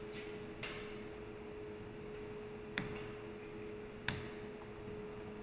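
Two sharp clicks, about three and four seconds in, with a fainter one near the start, as a mechanical seal's rotating part is handled and pressed down onto a stainless-steel agitator shaft, over a steady hum.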